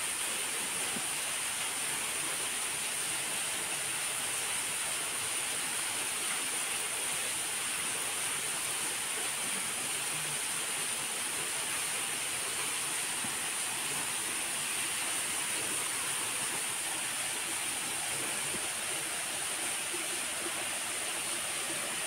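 Steady rushing of flowing water, even throughout, with a steady high-pitched hiss over it.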